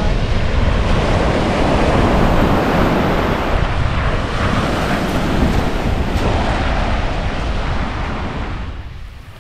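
Sea waves washing onto the beach, with wind buffeting the microphone; the sound fades out near the end.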